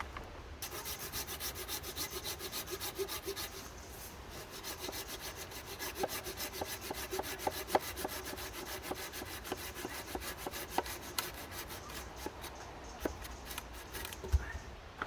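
Hand saw cutting through a wooden limb with quick, even back-and-forth strokes, about four a second, stopping shortly before the end.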